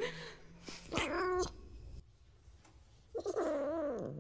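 Domestic cat meowing twice: a short call about a second in, then a longer one near the end that wavers up and down in pitch.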